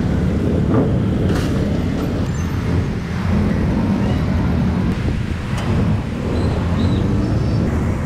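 Busy city-street traffic: a steady hum of motorbike and car engines passing, with a few light clicks.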